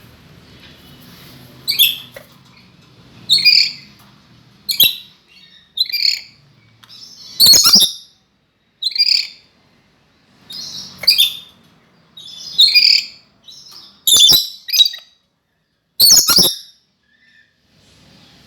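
A lory (nuri parrot) giving loud, high calls, about a dozen short ones spaced a second or two apart.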